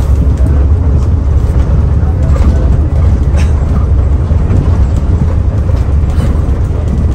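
Mercedes-Benz OH 1521 bus under way: a steady, loud, low engine drone and road rumble, with a few faint rattles.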